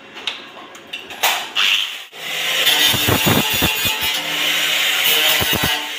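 Handheld angle grinder started about two seconds in and running against a sheet-metal box, a loud steady grinding of disc on metal. Before it, a few clicks and knocks of the tool being handled.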